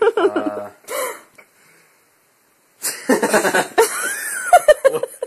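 A man's voice making wordless sounds: a short vocal sound at the start, a dead gap of about a second, then a longer, louder stretch of vocal noise with some hiss in it.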